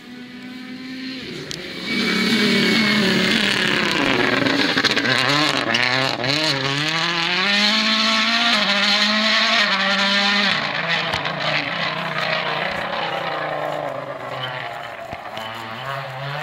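Toyota Yaris WRC rally car's turbocharged 1.6-litre four-cylinder engine at full throttle. The pitch climbs through each gear and drops sharply at every shift as the car approaches and passes. It is loudest about two seconds in and fades away over the last few seconds, with a few sharp pops.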